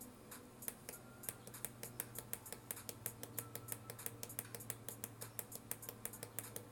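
Small tactile pushbutton clicking rapidly, several sharp clicks a second, as it is pressed and released over and over; each press counts the ammo counter down by one. A faint steady low hum runs underneath.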